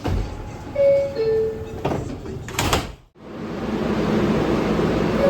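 NYC subway car door chime: two notes, the second lower, then a loud clatter of the doors closing about a second later. After a brief break, steady train and station noise.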